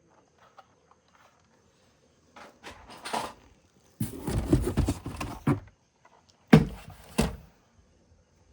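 Objects being handled: scattered clicks, a short clatter, a longer rattling and scraping, then two sharp thuds about half a second apart.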